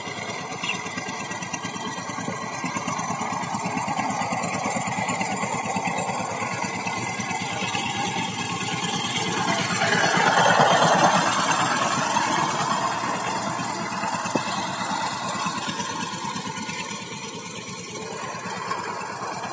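Two-wheel walk-behind power tiller's single-cylinder diesel engine running steadily under load as its cage wheels work a flooded rice paddy. It grows loudest about halfway through as it passes close, then fades.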